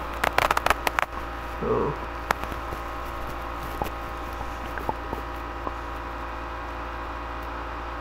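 A quick run of sharp computer-mouse clicks in the first second, then a steady electrical hum and hiss with a few faint isolated clicks.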